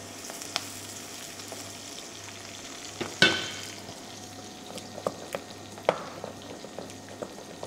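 Onion frying in oil in a pan, a steady sizzle, stirred with a utensil that knocks on the pan: a sharp ringing clank about three seconds in, then a few lighter clicks.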